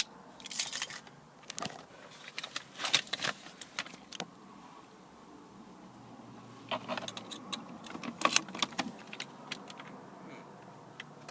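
A bunch of car keys jangling, with sharp clicks as the key is fitted into the ignition lock, in short scattered bursts.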